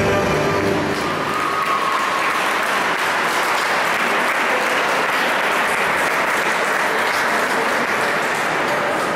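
Audience applauding, with the program music fading out about a second in.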